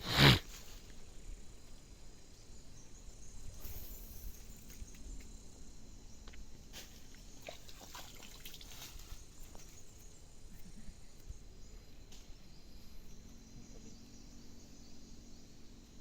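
Quiet outdoor background with faint scattered rustles and clicks, after a short loud sound at the very start.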